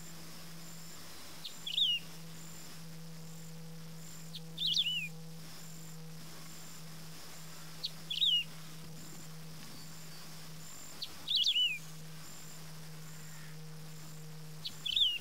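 Wedge-tailed grass-finch (Emberizoides herbicola) singing: five short phrases about three seconds apart, each a quick note followed by a brief falling warble.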